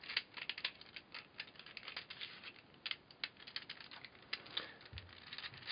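A 3D-printed plastic mirror Square-1 puzzle being twisted by hand: a quick run of small plastic clicks and clacks as its layers turn, thinning out to a few scattered clicks after about three seconds.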